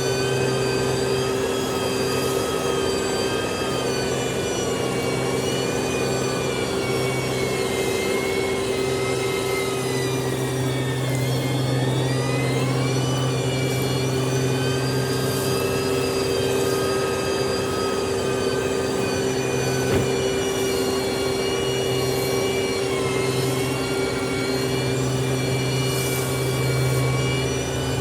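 Diesel engine of heavy road-building machinery running steadily under load, its pitch sagging and recovering about halfway through; a single knock about two-thirds of the way in.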